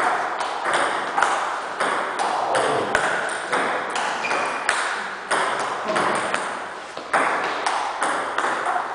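Table tennis rally: the ball clicking off bats and the table two or three times a second, each hit ringing on in the echoing hall.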